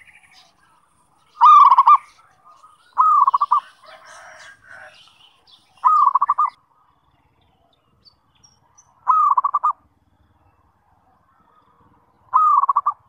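Zebra dove (perkutut) cooing: five short, rolling coo phrases, each about half a second long, spaced a few seconds apart.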